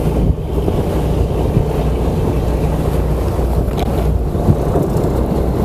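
A boat's engine running steadily with a low hum, mixed with wind on the microphone and the rush of rough water.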